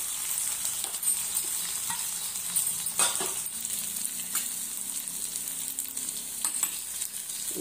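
Gongura and spinach greens with a tempering of dried red chillies, garlic and dals sizzling in a non-stick pan, a steady sizzle, with a metal spatula scraping and tapping the pan a few times as it stirs.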